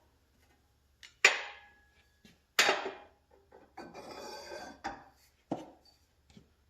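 Metal tools and parts clanking as they are handled and set down: several separate sharp clanks, with a brief rattling stretch about four seconds in.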